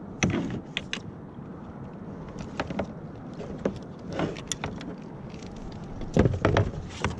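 Scattered clicks, knocks and rattles of fishing gear being handled aboard a plastic fishing kayak, over a steady low rumble. The loudest knocks come just after the start and again about six seconds in.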